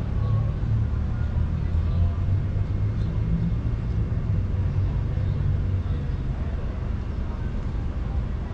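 Steady low rumble of wind buffeting the microphone of a camera carried on a moving bicycle.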